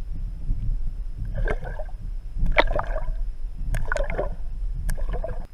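Wooden popping cork jerked at the water's surface, heard underwater: four gurgling pops and splashes about a second apart, some with sharp clicks, over a steady low rumble.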